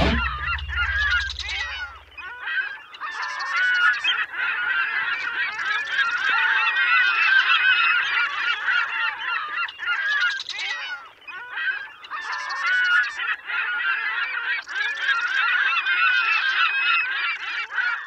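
A large flock of birds calling at once, many overlapping calls, with louder, shriller surges every few seconds.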